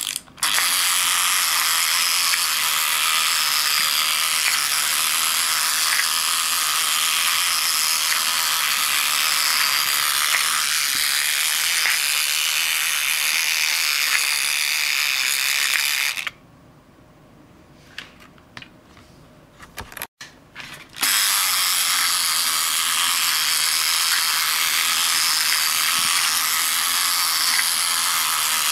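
Magnetic fishing game toy running: its small motor and plastic gears turn the fish pond with a steady rattling whir. It stops about sixteen seconds in, a few light clicks follow, and it starts up again about five seconds later.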